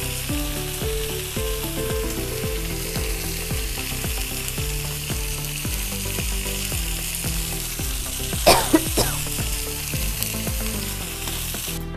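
Green-masala-coated mackerel frying in oil on a hot tawa: a steady sizzling hiss. About two-thirds of the way through there is a brief, sharper, louder spurt.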